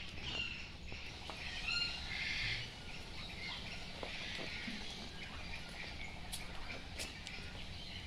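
Many captive birds chirping and chattering in an aviary: short high calls overlap throughout, thickest about four to five seconds in.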